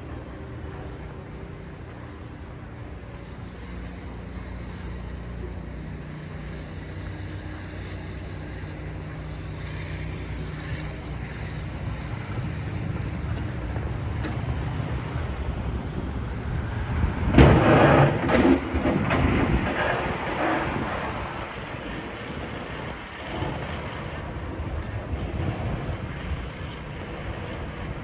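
Steady low rumble of street traffic with wind on the microphone. A vehicle passes close about seventeen seconds in, the loudest moment, its noise swelling and then fading over a few seconds.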